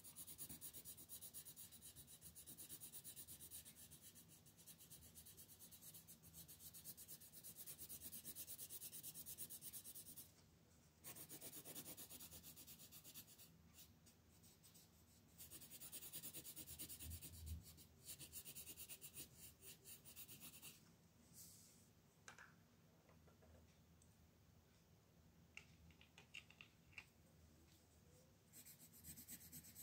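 Wooden coloured pencil shading on paper: rapid back-and-forth scratching strokes in long stretches with short pauses, quieter with a few light ticks for a while in the second half, then the strokes start again near the end.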